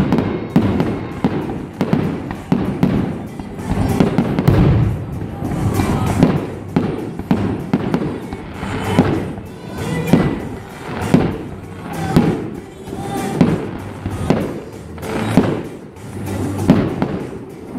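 Fireworks going off in a steady barrage, a burst roughly every second, with music playing underneath.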